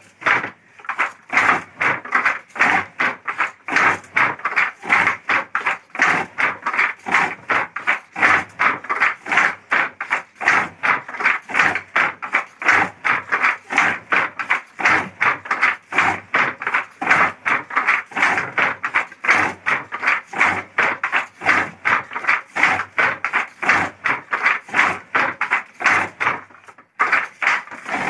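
Wooden handloom clattering in a fast, even rhythm of about three clacks a second, stopping near the end.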